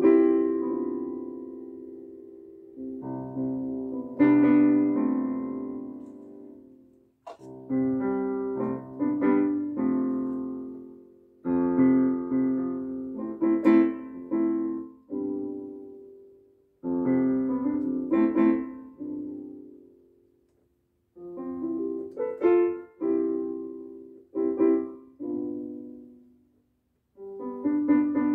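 Electronic keyboard playing a slow melody over chords in short phrases of a few seconds, each dying away before the next, with brief pauses between some of them.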